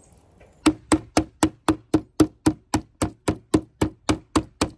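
Metal meat mallet pounding thin slices of wild hog meat flat on a cutting board: a steady run of sharp knocks, about four a second, starting about half a second in.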